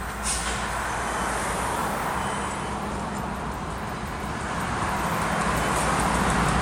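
BNSF diesel-electric freight locomotives approaching on the rails, their engines' low steady rumble and the rushing wheel-and-rail noise growing steadily louder as they near.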